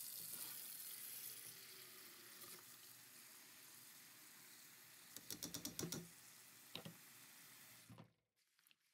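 Tap water running steadily into an enamel bowl of rose petals being rinsed, with a brief clatter about five seconds in as petals are tipped in from a metal strainer; the water cuts off shortly before the end as the tap is closed.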